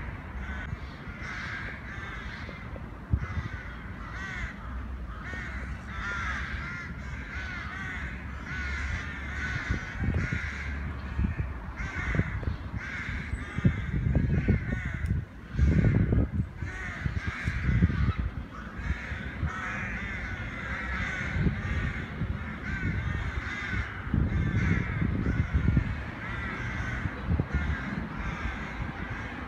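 Many birds calling at once from the treetops, short wavering calls repeating and overlapping without pause. A low rumble, like wind on the microphone, swells and falls underneath, loudest a little past the middle.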